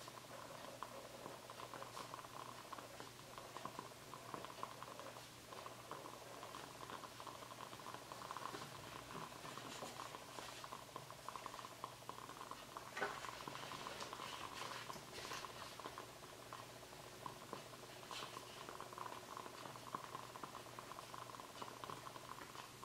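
Faint, steady fine crackling made of many tiny ticks, with one sharper tap about 13 seconds in.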